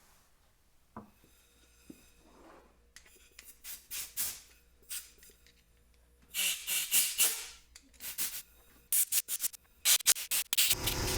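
Motorcycle carburetor parts being cleaned by hand: irregular rubbing and scrubbing strokes, coming quicker toward the end, then a loud continuous hiss that starts just before the end.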